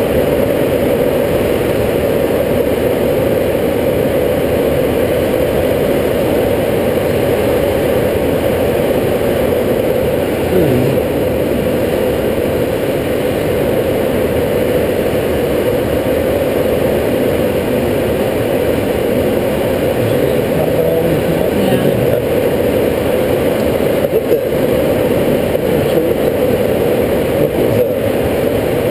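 Steady rush of air streaming over a glider's canopy in flight, heard inside the cockpit as a loud, even noise.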